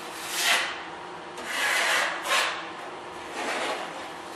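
Drywall taping knife scraping through joint compound, about four separate scraping strokes, as a second coat of mud is spread along an inside corner.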